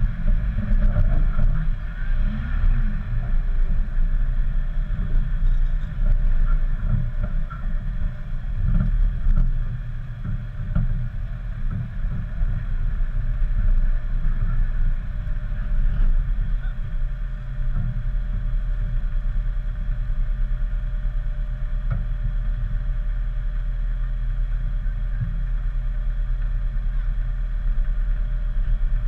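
2008 Jeep Wrangler JK's engine running at low speed while crawling over rough off-road ground: a low, muffled rumble with a few knocks. It rises and falls for the first ten seconds or so, then runs steadier.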